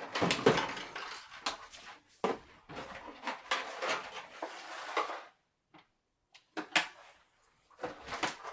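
Plastic toy packaging and parts being handled: irregular rustling and sharp clicks, with a short lull past the middle and a few louder clicks near the end.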